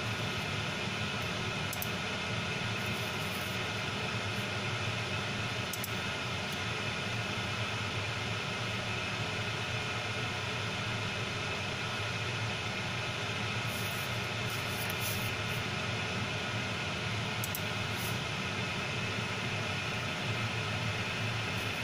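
Steady fan hum and hiss with no change throughout, with a few faint brief ticks in the second half.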